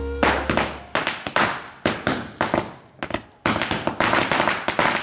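Firecrackers going off on the ground: a rapid, irregular series of sharp bangs, with a brief pause about three seconds in, then a faster, denser run of cracks.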